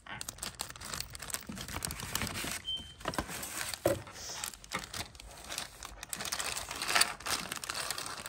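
Thin clear plastic bag crinkling and rustling in irregular crackles as it is handled and cut open with scissors.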